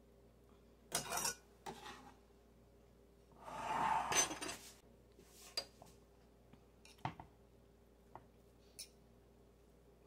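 Kitchen handling sounds as diced avocado is added to a bowl of rice: a few light knocks and clinks of utensils and dishes, with a longer scrape about four seconds in.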